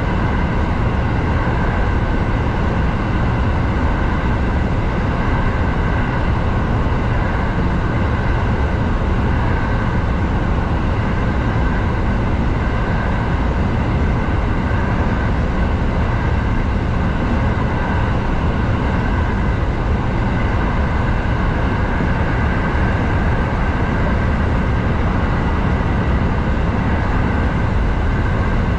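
Kintetsu 7000 series electric train running at steady speed through a tunnel, heard from inside the front car: a continuous low rumble of wheels on rail with a few steady high tones over it.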